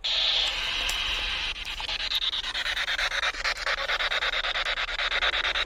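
Spirit box (radio sweep device) sweeping through stations: loud hissing radio static, switched on suddenly, chopped into rapid, even pulses as it scans from channel to channel.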